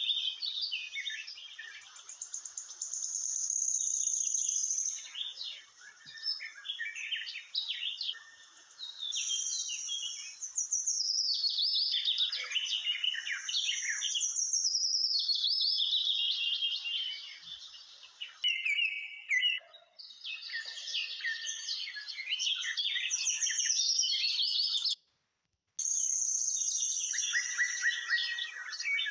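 Many small birds chirping and singing, with whistled calls and fast trills overlapping almost without a break. The sound cuts out abruptly for under a second near the end, then resumes.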